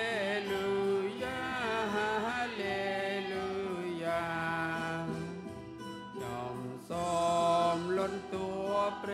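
Small mixed choir of men and women singing a hymn in Khmer, with long held notes and a short break between phrases about six seconds in.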